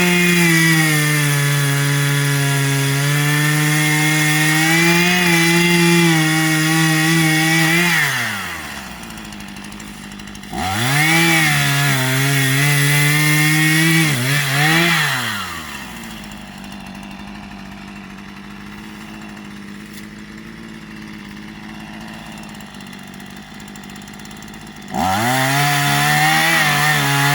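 Small Stihl chainsaw held at high throttle for about eight seconds, then dropping to idle. It revs up again for about five seconds with a brief dip, idles for about nine seconds, and revs up again near the end.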